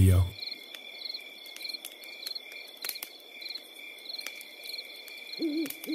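Crickets chirping in a steady, evenly repeated rhythm over a constant high trill, with scattered sharp crackles from a wood campfire. Near the end comes a short, low, wavering call.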